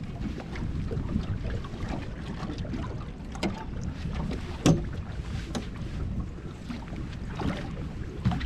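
Wind buffeting the microphone and choppy water lapping against a small boat's hull, with a few sharp clicks and knocks, the loudest a little past halfway.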